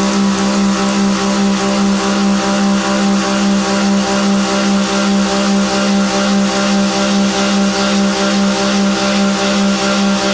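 Milling machine cutting metal: a steady tone with overtones that pulses evenly about four times a second, over a constant hiss.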